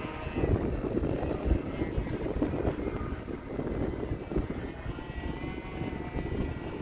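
Heavy gusting wind buffeting the microphone, with the faint steady drone of a Hobbyzone Aeroscout S RC plane's electric motor and rear pusher propeller hanging in the air under it.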